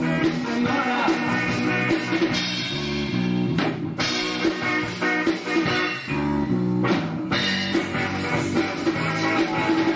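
Rock music from a band with electric guitars, bass and drum kit, with two short breaks, a little under four seconds in and about seven seconds in.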